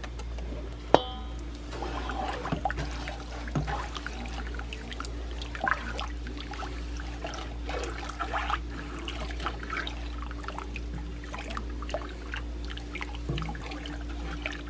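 Sugar and hot water being stirred in a pot to make sugar syrup: liquid sloshing and trickling with scattered small scrapes and clinks of the utensil, and one sharp metallic clink about a second in. A steady hum runs underneath.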